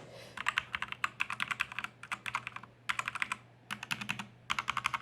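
Typing on a Redragon 60% mechanical keyboard: quick runs of key clicks in several bursts, with short pauses between them.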